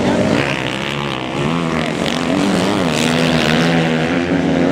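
Several motocross bike engines running together, their pitch rising and falling as the bikes are revved and ridden away one at a time.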